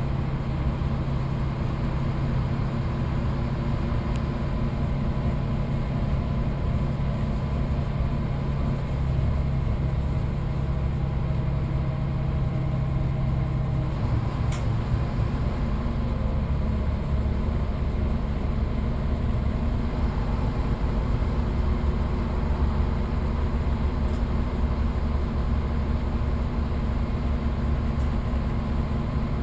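Midland Red BMMO D9 double-decker bus under way, its diesel engine running steadily with road and body noise. About halfway through the engine note drops lower.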